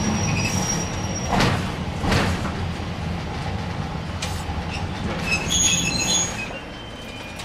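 Toyohashi Railway Azumada Line tram running on street track, heard from inside the car: a steady low rumble of motors and wheels, with a high-pitched wheel squeal in the first second and again around five to six seconds in. It grows quieter near the end.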